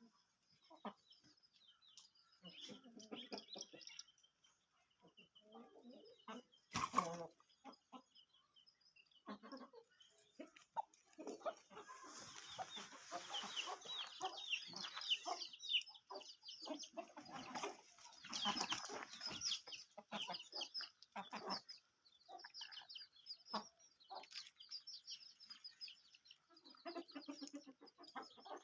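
A flock of young Aseel chickens peeping and clucking, with many short high chirps that crowd together in the middle stretch. A single sharp knock about seven seconds in.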